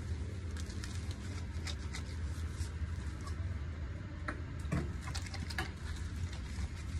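Wet squelching and patting of hands working shampoo lather into a puppy's soaked fur, with a squirt from a squeezed shampoo bottle about four and a half seconds in, over a steady low hum.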